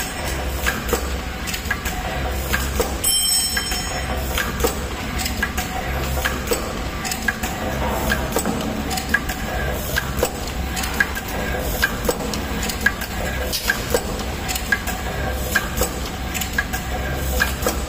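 Inner-and-outer tea bag packing machine running: a steady train of sharp mechanical clicks and knocks, a few a second, over a low hum that swells and drops every second or two.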